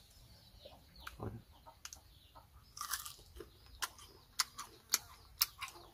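Mouth-close chewing of a crisp young tamarind pod: a crunchy burst about three seconds in, then several sharp crunching clicks about half a second apart.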